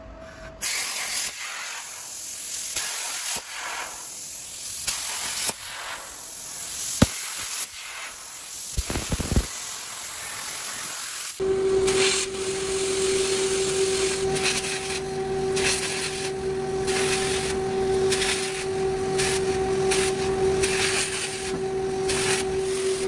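CNC plasma cutter torch cutting steel plate: the steady hiss of the plasma arc and its compressed-air jet, with a few sharp clicks in the first half. About halfway through the sound switches to a louder hiss with a steady hum under it.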